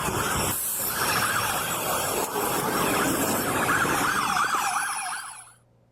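Police siren yelping rapidly, its pitch sweeping up and down fast, over heavy road and wind noise. It cuts off suddenly near the end.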